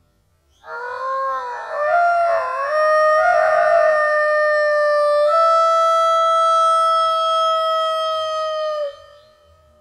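A rooster's crow slowed to a quarter of its speed, stretched into a long, deep, instrument-like tone. It wavers and bends for the first couple of seconds, then holds a steady note that steps up slightly about five seconds in, and stops about nine seconds in.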